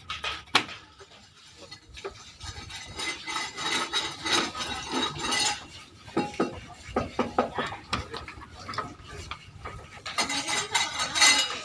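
Irregular clinking and clattering of hard objects, many short sharp knocks with no steady rhythm.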